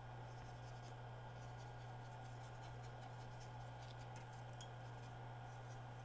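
Faint scratching and rubbing of a cotton swab worked over the contact pads of a remote control's circuit board, over a steady low hum.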